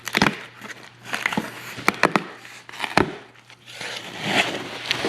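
Cardboard record mailer being pulled and torn open by hand: rustling and crinkling with several sharp snaps of cardboard.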